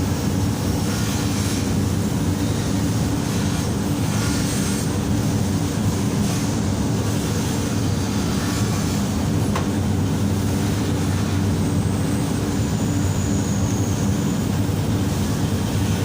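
Steady low mechanical hum, like a motor running, with a faint high whine and one light click about halfway through.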